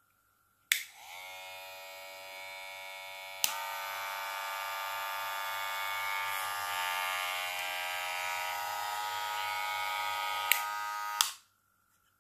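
Cordless Wahl Senior-type hair clipper switched on with a click and running with a steady buzz. A second click about three seconds in brings a louder, fuller buzz. Two more clicks near the end, and the motor stops.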